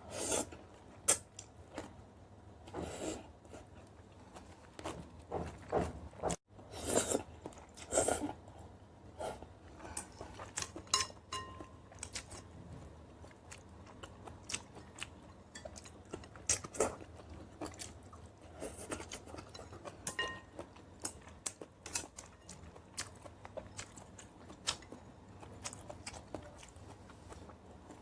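A person chewing and crunching food close to the microphone: irregular sharp clicks and short bursts, louder and busier in the first eight seconds or so.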